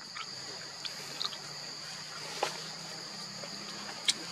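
Steady high-pitched insect chorus with two held pitches, with a few sharp clicks scattered through it, the loudest near the end.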